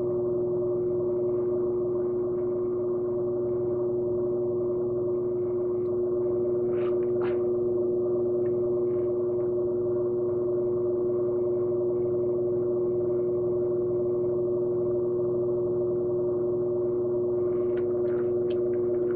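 Electric pottery wheel motor running at a steady speed: a constant hum built on one strong tone with several weaker ones, plus a few faint soft clicks from work on the clay.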